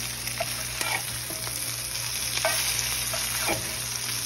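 Salmon cakes frying in butter in a cast-iron skillet: a steady sizzle with scattered crackles.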